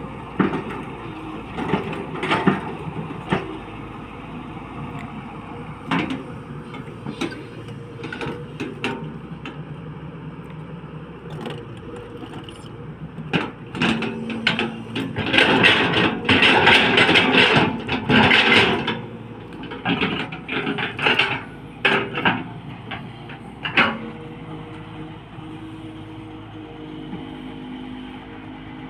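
SANY hydraulic excavator at work: its diesel engine running steadily while the bucket and arm give off repeated knocks, cracks and scraping, with a louder stretch of clattering and scraping lasting several seconds about halfway through.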